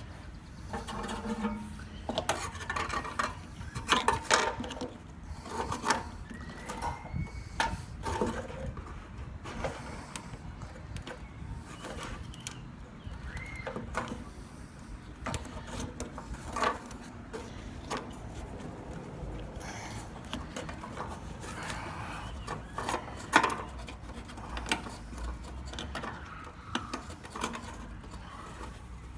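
Irregular knocks, clicks, scraping and rubbing from a replacement fuel pump assembly being worked into a pickup's fuel tank opening. A couple of short squeaks come through; the pump is fighting its way in and will not fit.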